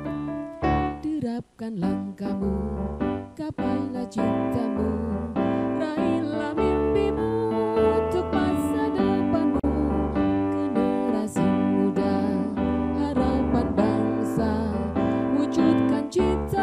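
Indonesian school march song played on electric keyboard, with chords over a steady bass line. The music drops out briefly about a second and a half in, then runs on without a break.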